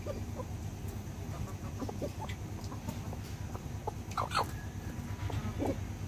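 A flock of chickens clucking softly while feeding, with many short calls scattered through. A louder call comes a little past four seconds in, and another near the end.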